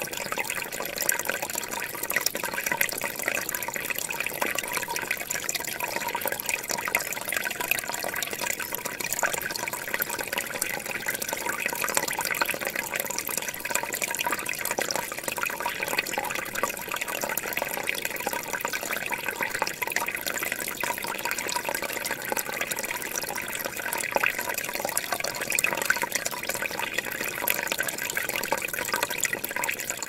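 Small forest stream running over rocks in little cascades: a steady, even rush and trickle of water.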